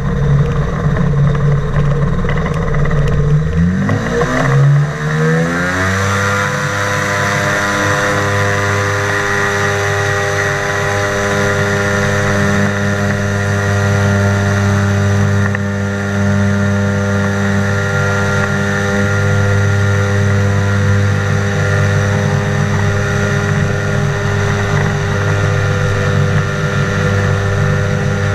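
Flying inflatable boat's propeller engine running, revving up smoothly from a low speed over about two seconds, then holding steady at high revs.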